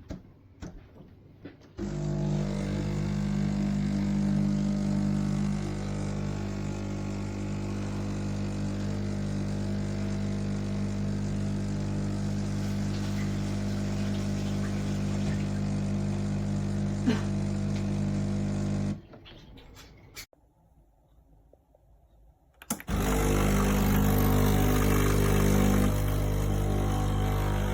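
Sage Barista Express espresso machine running with a steady electric buzz. It stops about nineteen seconds in and starts again a few seconds later, louder and with much more hiss.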